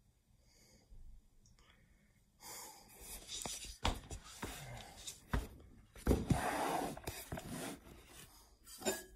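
Handling noise from a phone being picked up and turned around: rubbing and scraping against the microphone with a few sharp knocks, the first about four seconds in and the last near the end.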